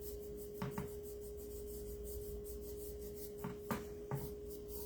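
A few light taps and clicks of craft supplies being handled on a tabletop, two near the start and three near the end, over a steady faint hum.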